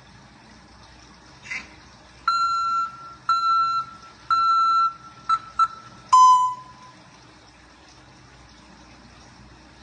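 African grey parrot imitating an electronic beeper: a short chirp, then three long even beeps about a second apart, two quick short beeps, and a final lower beep.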